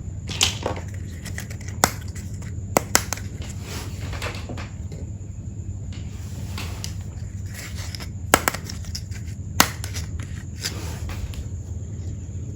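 Small hard-plastic toy play-set pieces being handled and unpacked: scattered sharp clicks and taps, with softer rustling between them, over a steady low hum.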